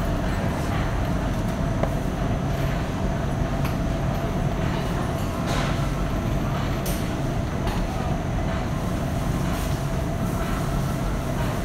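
Supermarket interior ambience: a steady low hum with a constant mid-pitched tone running through it, and scattered short clicks and clatters, a few of them louder about halfway through and near the end.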